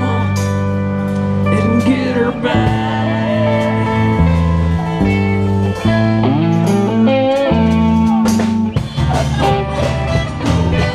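Live band playing a blues-flavoured tune on acoustic and electric guitars, over a low bass line that moves in steps.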